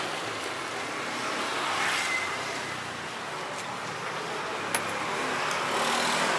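Steady street traffic noise from passing vehicles, with one sharp click about three-quarters of the way through.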